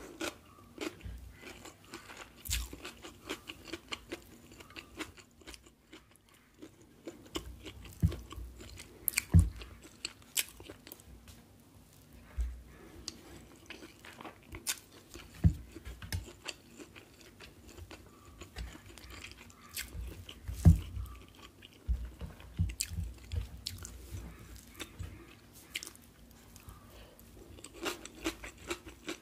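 Close-miked eating sounds: chewing and crunching mouthfuls of chicken biriyani eaten by hand, with many irregular sharp mouth clicks and a few louder bites.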